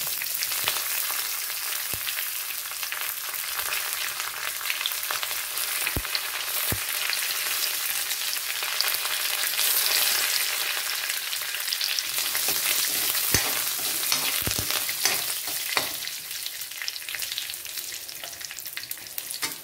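Curry leaves, mustard seeds, chana dal and dried red chilli pieces sizzling and crackling in hot coconut oil in a steel kadai: a South Indian tempering. A few sharp clicks stand out from the steady sizzle, and a steel ladle stirs the pan near the end.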